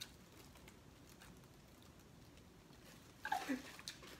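Faint, sparse clicks and crackles of crab legs being eaten and their shells and plastic boil bags handled. About three seconds in come a few short vocal sounds.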